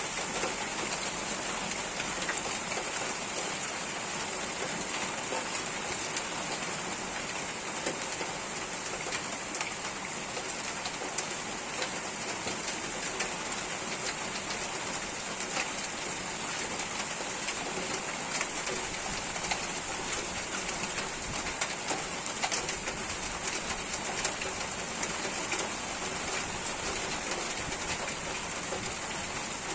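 Steady rain falling and pattering on surfaces, with many individual drops ticking through it.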